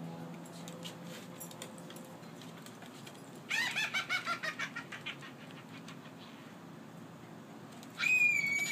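A rapid run of high-pitched, bird-like chirps, about seven a second for under two seconds, followed near the end by a single steady high whistle-like squeal that starts suddenly.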